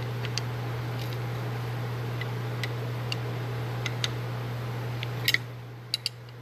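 Scattered light metallic clicks and taps of hand tools working on a hydraulic cylinder, with a quick cluster of clicks near the end. A steady low hum lies under them.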